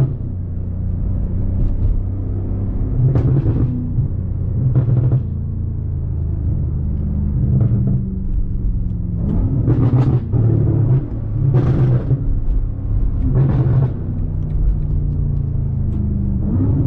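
BMW M5 Competition's twin-turbo V8 running in slow city driving: a steady low drone, broken every couple of seconds by short louder bursts of throttle.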